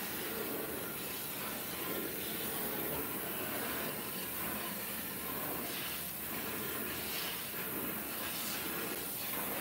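Oxy-acetylene torch flame hissing steadily against sheet steel, with a few short crackles.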